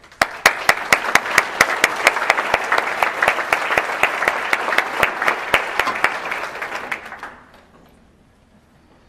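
Audience applauding, with a few sharp claps standing out close by; the applause starts at once and dies away about seven seconds in.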